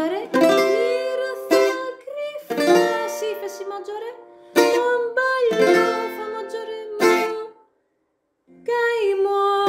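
Greek bouzouki strumming chords, struck about once a second, with a woman singing the melody over it. The playing stops briefly about eight seconds in, then starts again.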